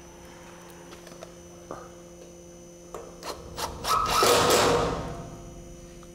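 A few light clicks and taps of handling, then a cordless driver runs for about a second, driving a screw through a metal fascia bracket into timber.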